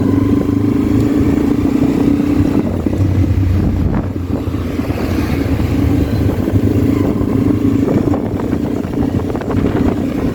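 Motorcycle engine running steadily under way, with road and wind noise; the engine note eases briefly about three to four seconds in, then picks up again.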